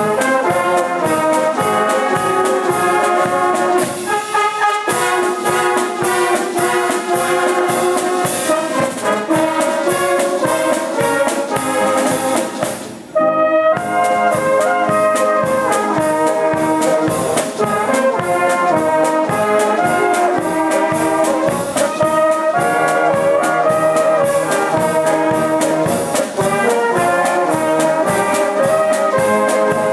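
A brass band with trombones and valved horns playing a tune over a steady beat, with a short break in the playing about 13 seconds in.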